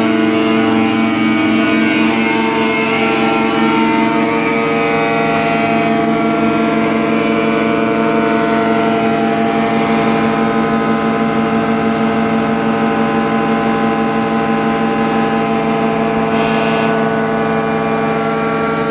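Kawasaki K3SP36 hydraulic piston pump running steadily, a constant whine with many overtones, with two short hisses about eight and sixteen seconds in.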